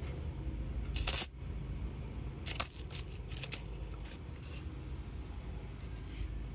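90% silver Roosevelt dimes clinking against each other and against the loose coins as a stack is handled. There is a quick run of clinks about a second in, the loudest clink comes about two and a half seconds in, then a few scattered clicks follow.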